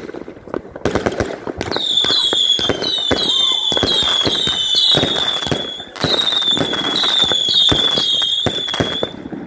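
A consumer fireworks cake firing shot after shot: repeated bangs and bursting, crackling stars. From about two seconds in a high whistling tone runs alongside, dipping slightly in pitch every half second or so.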